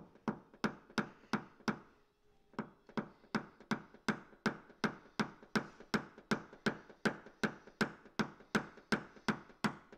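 A small hammer tapping a tap-down punch against the body panel of a 2016 Honda Pilot, in quick, even light taps of about three a second with a brief pause about two seconds in. The taps are knocking down a raised ridge around the dent before a glue pull, so that the pull does not tighten the ridge.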